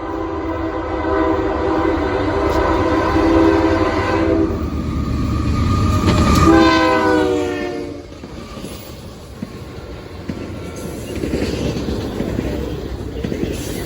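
Horn of a GE AC44C6M freight locomotive, a multi-note chord blown long and then again in a second blast whose pitch drops as the locomotive passes; it is an unusual horn, sounding like those on BNSF and Union Pacific engines. The horn stops about eight seconds in, and the rumble and clickety-clack of the passing train follow.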